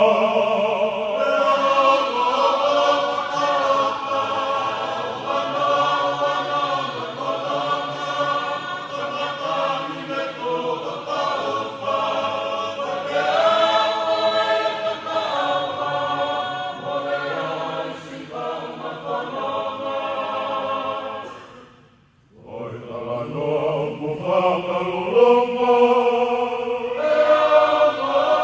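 A Tongan choir of men and women singing together in sustained notes. The singing stops for a moment about three-quarters of the way through, then comes back in.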